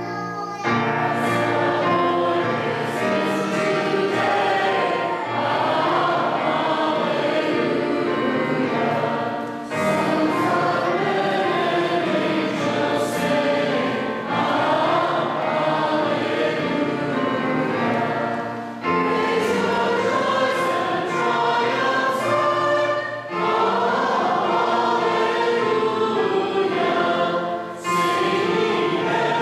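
A church choir and congregation singing a hymn together, in sustained phrases of about four to five seconds with brief breaths between them.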